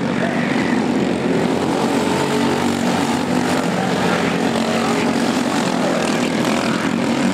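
Several go-kart engines running together on the track, a steady, unbroken buzzing drone.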